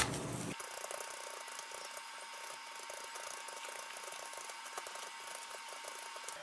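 Knife cutting into the inside of a raw onion to hollow it out, giving a quick, irregular run of small clicks.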